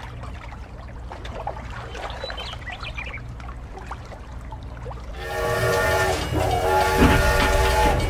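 Toy train running on its plastic track, a low steady rumble with light clicks; about five seconds in, a loud train-horn sound starts and sounds in long blasts with short breaks.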